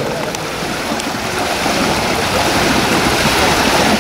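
Steady rushing and lapping of swimming-pool water, with a couple of faint clicks in the first second.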